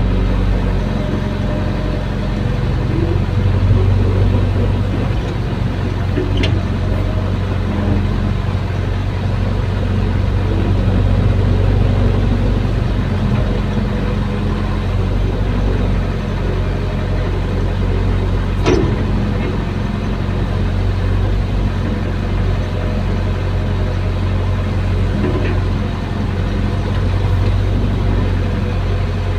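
Caterpillar excavator's diesel engine running steadily as the hydraulic arm and bucket level sand, heard from inside the cab. Three sharp knocks stand out, about six, nineteen and twenty-five seconds in.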